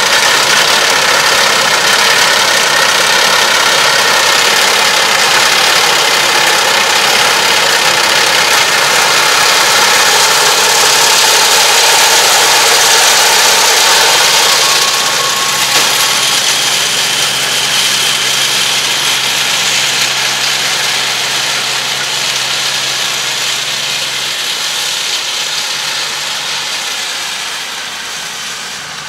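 Yanmar tractor engine running under load as it drives a round baler through rice straw, with a dense hiss of machinery over the steady engine note. It grows quieter in the second half.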